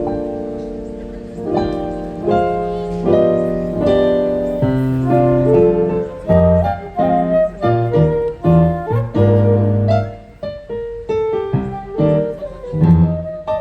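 A live ensemble playing instrumental Colombian music: a melody of quick notes over a moving bass line, the notes growing shorter and faster about halfway through.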